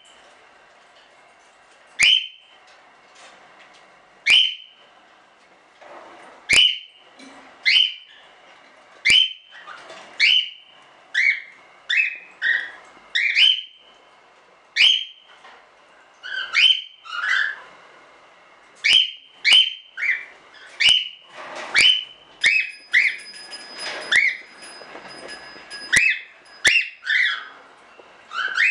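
Cockatiels calling over and over: short, loud, upward-sweeping whistled calls, about two seconds apart at first, then coming faster, roughly one a second, in the second half.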